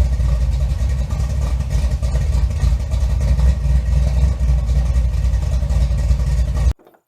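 Engine running with a loud, deep, steady rumble, cut off abruptly near the end.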